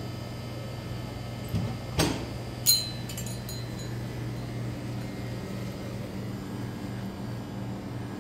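Steady low hum of indoor room noise, with a few sharp clicks between about one and a half and three seconds in; the last click rings briefly at a high pitch.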